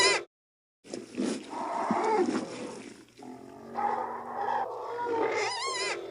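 Sarlacc creature sound effects: a warbling, wavering cry cuts off just after the start, then after a short gap comes a long growling, roaring call, and the warbling cry returns near the end.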